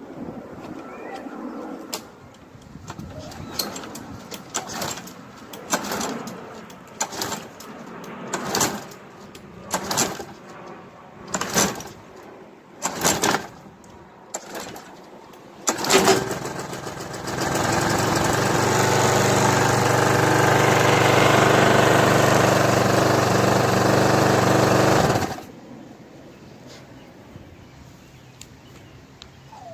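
Walk-behind lawn mower's small pull-start engine being cranked over and over, about a dozen sharp pulls a second or so apart, before it catches about 16 seconds in, runs loudly and steadily for about eight seconds, then cuts off suddenly. It is hard to start with only a light hot-glue-stick blade on the shaft, and once running it rips the glue sticks off at once.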